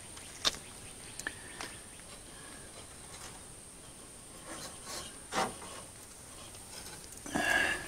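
Quiet rustling and scraping of a hand pulling matted grass-seed fluff and debris off the wire-mesh trash guard in front of a tractor radiator, with a few small sharp clicks and knocks. A louder one comes about five seconds in.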